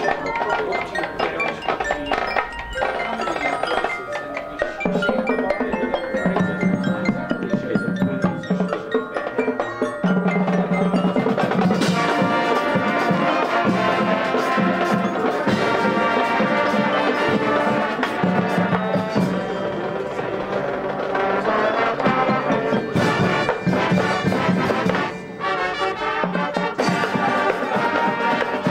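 High school marching band playing a concert-style show, with the front ensemble's marimbas and other mallet percussion prominent over held low wind notes. It swells into a fuller, louder passage about ten to twelve seconds in, with a short drop-off near the end.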